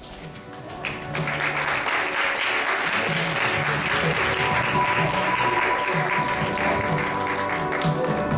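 Background music swells in about a second in, with an audience applauding over it.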